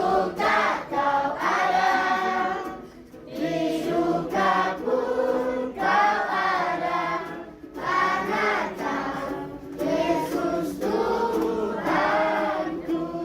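A choir of mixed voices singing a song in phrases of a few seconds each, with brief breaks for breath between them.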